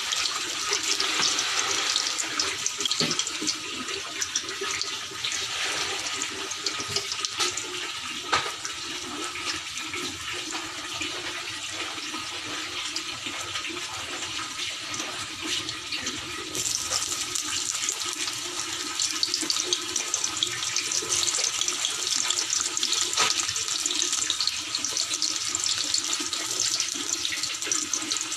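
Garlic sizzling in hot oil in a wok: a steady frying hiss with faint scattered pops, growing brighter about two-thirds of the way through.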